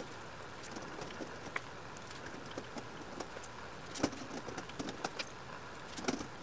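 J-clip pliers crimping J-clips onto the wire mesh of a rabbit cage, with scattered light metallic clicks and rattles of the wire. The sharpest clicks come about four seconds in and again about six seconds in.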